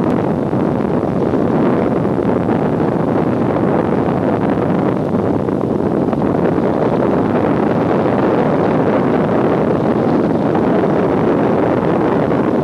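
Steady roar of an airplane's engines and rushing air, heard from inside the passenger cabin.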